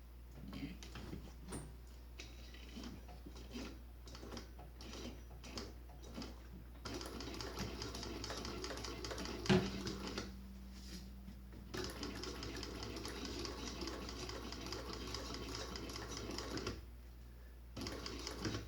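Industrial walking-foot sewing machine stitching through heavy nylon webbing: a few slow, separate stitches at first, then two long runs of steady stitching with a short pause between, and a brief run near the end. A single sharp knock sounds partway through the first long run.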